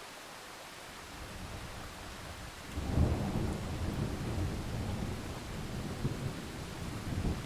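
Thunderstorm: steady rain hiss, with a low rumble of thunder building about a second in, breaking into a loud crack near the middle and rolling on as a deep rumble.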